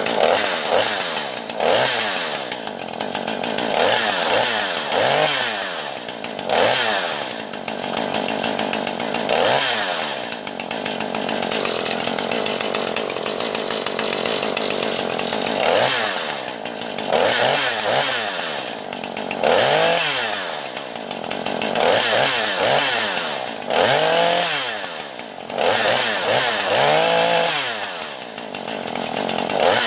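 Jonsered CS 2240 two-stroke chainsaw running and being revved up and down again and again, with a steadier stretch in the middle.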